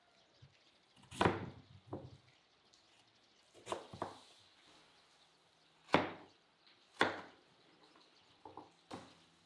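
Crinkle-cut knife chopping through peeled raw potatoes and knocking on a wooden cutting board, a cut every second or so, about eight in all.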